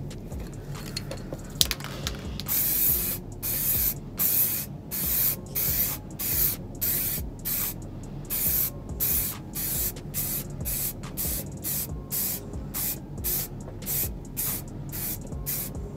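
Aerosol spray-paint can hissing in a long run of short bursts, about two a second, as a coat of paint is sprayed on, after a single sharp click about a second and a half in.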